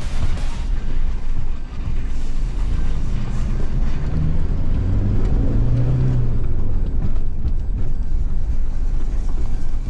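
Toyota Hilux engine working off-road over a steady low rumble, its pitch rising and falling about halfway through as the throttle changes.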